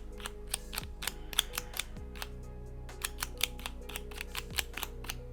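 Quick, irregular plastic clicking of a hybrid 15-puzzle / Rubik's cube as its pieces are slid and its sides turned, several clicks a second, over quiet background music.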